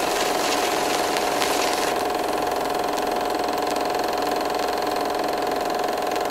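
Steady engine drone with a constant mid-pitched hum running evenly, without change in speed.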